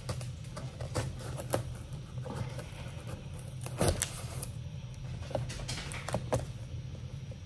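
Knife blade slitting the tape on a cardboard box, with irregular scratchy scrapes and clicks as the box is handled and turned; the loudest scrape comes about four seconds in.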